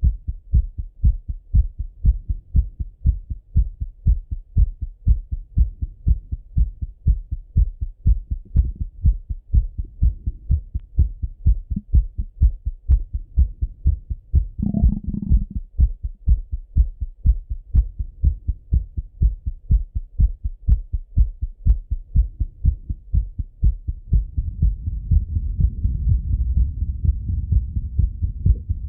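A man's heartbeat heard through a Littmann stethoscope on his own chest, still thumping after a run: a steady, even rhythm of low lub-dub beats. A brief louder noise breaks in near the middle, and a low rumble builds under the beats over the last few seconds.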